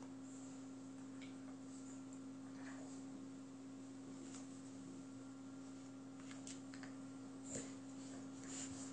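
A steady low hum, with faint scuffs and clicks from a Jack Russell terrier and a white dog play-wrestling on a rug over a tiled floor; one sharper click comes about three-quarters of the way through. No growls or barks.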